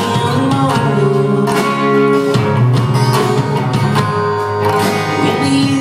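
Live band playing an instrumental stretch of a song: strummed acoustic guitar and electric guitar over a drum kit.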